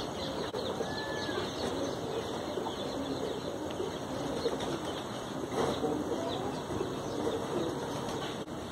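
Faint bird calls, low cooing and a few short high chirps, over steady background noise.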